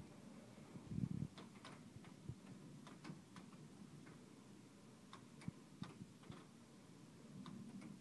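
Air hockey rally: the plastic puck clacking sharply against the mallets and the table's rails, about a dozen irregular clicks, with a low thump about a second in.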